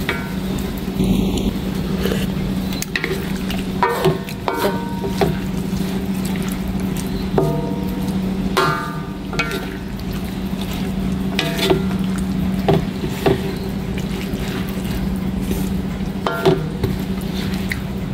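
Wooden spatula stirring and scraping through a simmering coconut-milk mixture in a wok, with a scattering of short knocks against the pan that ring briefly. A steady low hum runs underneath.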